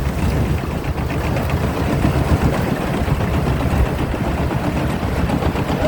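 TAMCO rice combine harvester's Isuzu 6HK six-cylinder diesel running steadily under load, a dense low drone with the machinery's noise over it.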